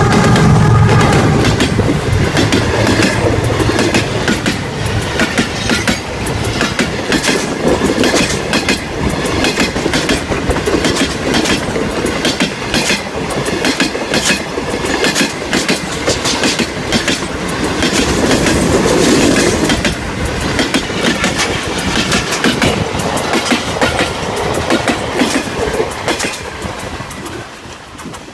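Express passenger train passing at speed. The diesel locomotive's engine is heard briefly at the start, then a long clickety-clack of the coaches' wheels over the rail joints, which fades away near the end.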